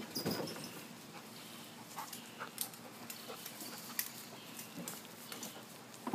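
Beagle puppy making short dog sounds while it romps on grass, with brief rustles and scattered clicks. The loudest burst comes just at the start.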